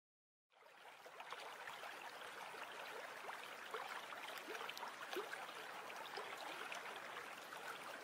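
A river stream flowing, with a steady rush and many small gurgles; it fades in over the first second or two.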